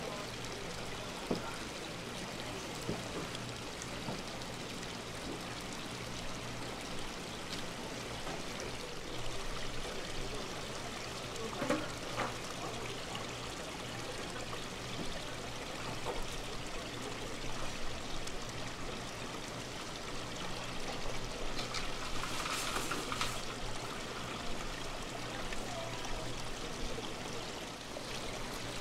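Water pouring and bubbling steadily into an aerated live-fish tank, over a low steady hum. About three-quarters of the way through, a brief louder burst of hissing water.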